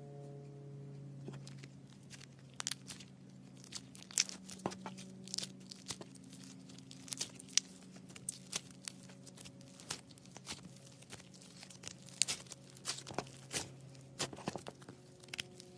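Slime being squeezed and poked by hand, making irregular sharp pops and crackles, several a second in clusters.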